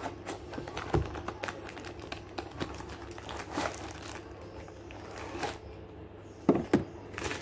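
Unboxing handling: a cardboard box being opened and a tripod in a clear plastic bag slid out, the plastic crinkling, with scattered clicks and taps of handling and two sharper knocks near the end.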